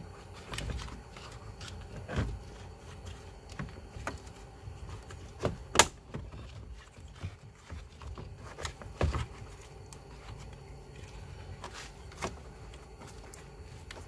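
Scattered plastic clicks and knocks as a truck's cab fuse box and its wiring harness are handled and pushed back into their mount under the dashboard. The sharpest click comes about six seconds in, with another knock about nine seconds in.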